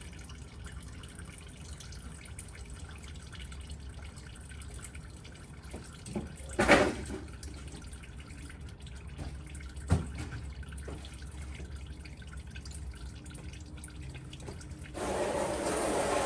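Used engine oil trickling in a thin stream from the drain hole of a 2007 Ford Crown Victoria's oil pan into a drain pan, with a light dripping splash: the sump is nearly drained. A sharp knock comes about seven seconds in, a smaller click near ten seconds, and a louder steady rushing noise sets in about a second before the end.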